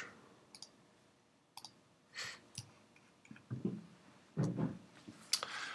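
A few quiet computer mouse clicks, spaced about a second apart, with a few softer, duller sounds between them.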